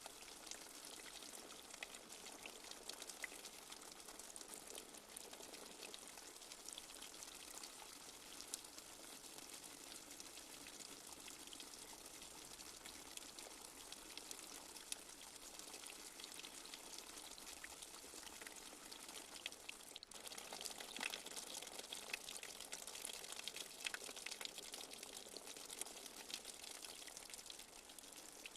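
Light rain falling steadily: a soft, even hiss of patter speckled with many small drop ticks, growing a little louder about two-thirds of the way through.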